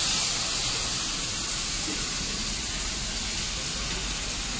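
Buttermilk and gram-flour kadhi batter freshly poured into hot tempering oil in a steel kadai, hissing and sizzling steadily as it throws off steam, easing slightly at first.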